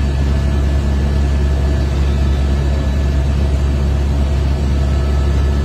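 Helicopter in flight: a loud, steady, low engine and rotor drone.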